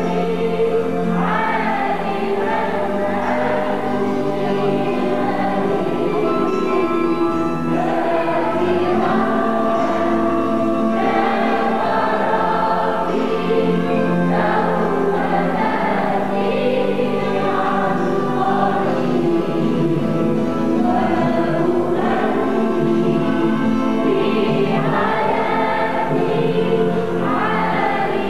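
Mixed church choir of men and women singing an Arabic Christian hymn, sustained notes carrying on steadily with no breaks.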